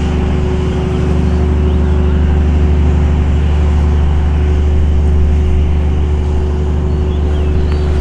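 A motorboat engine running at a steady speed with a deep, even drone.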